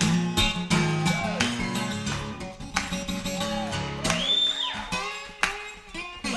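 Live band playing an instrumental break of a gospel song, with a steady beat.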